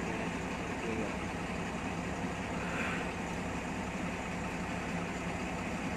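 Bus engine running with a steady low drone, heard from inside the passenger cabin.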